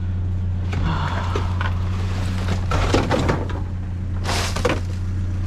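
Junk being rummaged through in a dumpster, scraping and clattering three times over a steady low hum.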